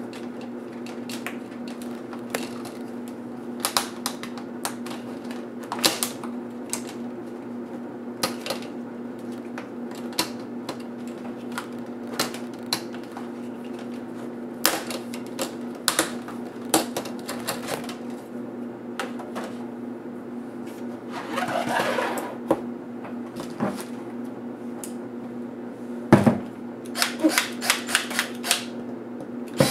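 Plastic retaining clips of a Samsung NP305E7A laptop's screen bezel clicking and snapping loose one by one as the bezel is pried off the LCD by hand, over a steady low hum. A louder knock comes near the end, followed by a quick run of clicks.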